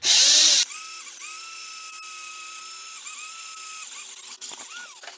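Electric drill boring a hole through the centre of a cast aluminium wheel: a loud harsh burst at the start, then a steady high motor whine that breaks off briefly twice and winds down near the end.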